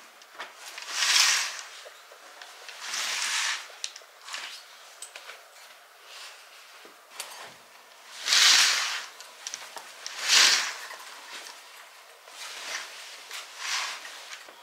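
Fabric rustling and swishing in about five separate bursts, each under a second long, with faint small handling ticks between them.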